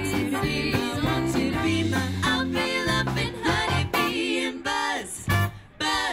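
Swing band playing, with three women singing together over trumpets, trombone and saxophones. Toward the end the band plays short, punched chords with brief gaps between them.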